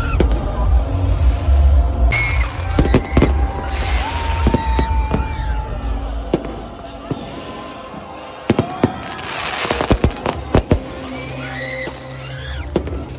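Aerial fireworks going off: a run of sharp bangs and crackles with a dense hissing crackle around nine to ten seconds in, over music with a heavy bass in the first half.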